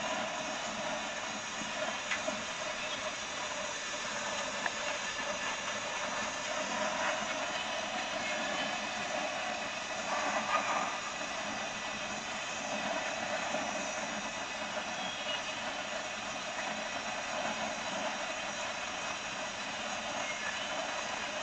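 Oklahoma Joe's Blacksmith Fireman gas charcoal torch running at full heat, a steady flame hiss as it is aimed into a pile of charcoal to light it, briefly louder about ten seconds in.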